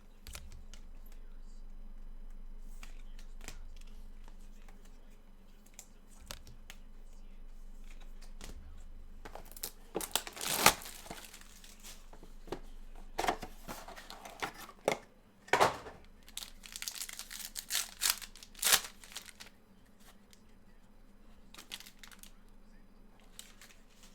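Trading card packs and their wrappers being torn open and crinkled by hand: a run of sharp rips and crackles starting about ten seconds in and lasting some nine seconds, with a faint low hum before it.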